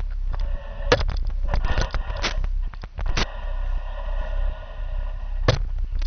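Telescopic gutter-camera pole being handled and raised: a series of sharp knocks and clicks, several close together in the first half and a single one near the end, over a steady hum.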